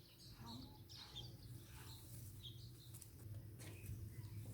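Faint outdoor ambience with a few short, scattered bird chirps over a low steady background hum.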